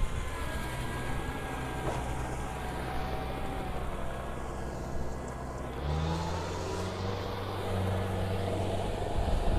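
Kubota crawler combine harvester's diesel engine running steadily as the machine tracks through a muddy rice paddy. About six seconds in, the engine note steps up and gets a little louder, with a faint whine above it.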